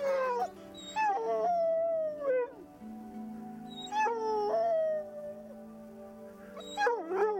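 Young Weimaraner "talking" in a series of drawn-out whining howls, about five, each sliding down in pitch, with a cluster of shorter ones near the end.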